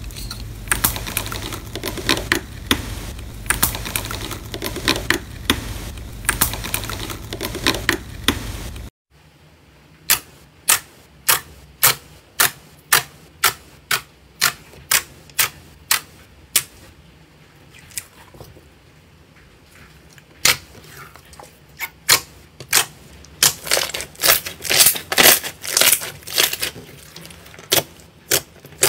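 Silver foil over slime crinkling and crackling as a stamp is pressed into it, over a steady low hum. About nine seconds in it cuts to sharp popping clicks, one or two a second, as fingers press into thick clear slime and burst its trapped air pockets, coming faster near the end.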